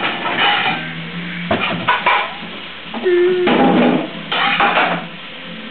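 Background guitar music, with about four short bursts of scraping, clattering noise over it.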